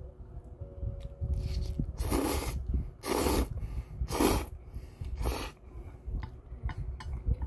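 A person slurping spicy mixed bibim-myeon noodles in four quick slurps about a second apart. Near the end comes chewing with small wet clicks.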